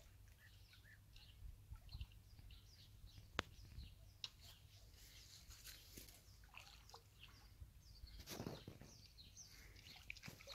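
Near silence with faint, scattered bird chirps, a single sharp click about three and a half seconds in and a short rush of noise about eight and a half seconds in.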